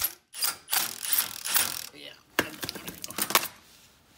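Milwaukee cordless impact wrench hammering a bolt up into the truck's frame in several short bursts. The bolt is the wrong one and is going in cross-threaded.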